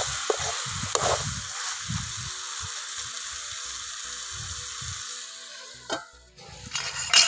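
Chicken frying in oil in a metal pan, sizzling steadily, while a spoon stirs and knocks against the pan. Near the end a steel lid is set on the pan with a couple of clanks, and the sizzle drops away for a moment.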